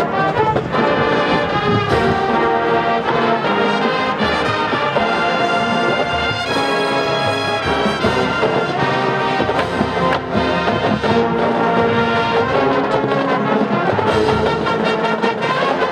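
Marching band playing loudly, with brass in front and sousaphones on the low parts. Percussion hits come in now and then.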